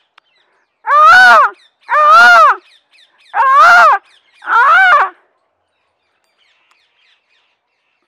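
A man imitating a bird's call with his voice: four loud calls about a second apart, each arching up and then down in pitch.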